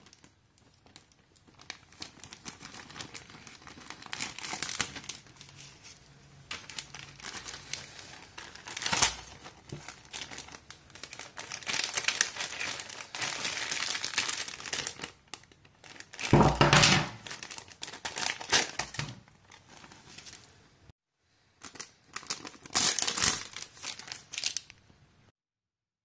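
Clear plastic LEGO polybag crinkling and tearing as it is pulled open by hand, with the smaller bags of bricks inside rustling. The crackling comes in irregular bursts, loudest about two-thirds of the way through.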